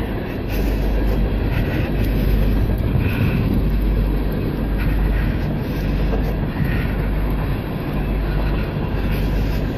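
Steady low rumble of a running heavy vehicle engine, with a hiss over it.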